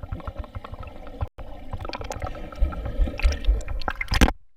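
Swimming-pool water sloshing and gurgling close to the microphone as a child swims. The sound cuts out for an instant about a second in, and a loud splash comes near the end.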